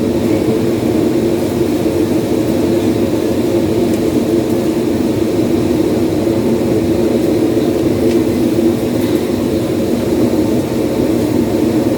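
A loud, steady mechanical drone that holds unchanged throughout.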